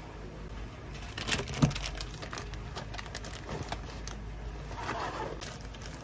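Cloth rustling and small clicks as a jacket is pulled on over a uniform and the ID lanyard is handled, with a short thump about a second and a half in.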